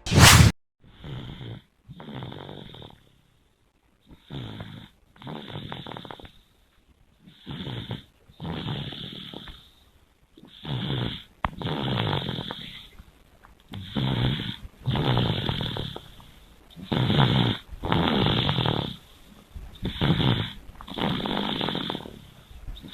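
Young child snoring loudly in sleep. Each breath comes about every three seconds as a short snore followed by a longer one, and the snores grow louder over time. A brief loud burst at the very start.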